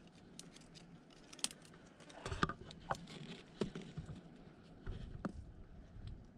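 Stick probing down a mud crab burrow: irregular scrapes and sharp clicks of wood against earth and mangrove twigs, with a few closer together about two seconds in.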